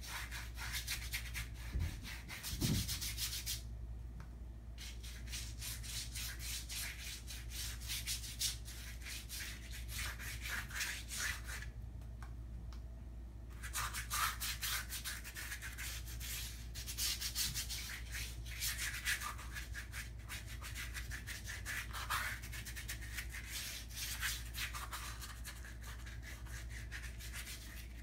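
Rapid scratchy strokes of a colour stick scrubbed back and forth over a large sheet of paper, laying down blue colour. The strokes stop briefly about four seconds in and again around twelve seconds in.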